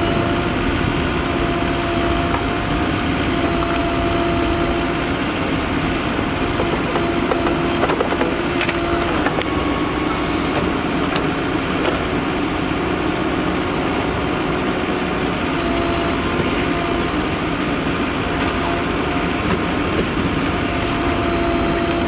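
Mahindra Earthmaster SX90 backhoe loader's diesel engine running under load as the backhoe digs and swings. A steady whine comes and goes and shifts in pitch as the arm is worked, with a couple of knocks about eight seconds in.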